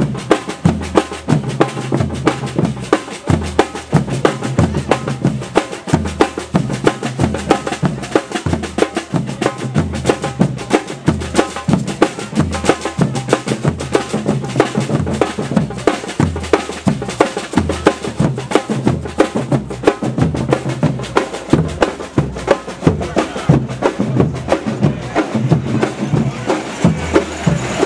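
A marching drum band of large bass drums beaten with sticks in a steady, driving rhythm, with a quick patter of lighter strokes over the deep beats.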